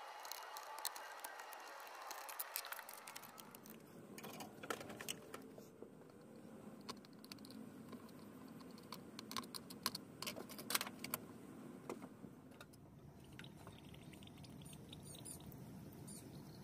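Metal pick scratching and clicking against a Coleman stove fuel cap, prying out the hardened old cap gasket. A quick run of small clicks and scrapes over the first few seconds, then scattered single clicks.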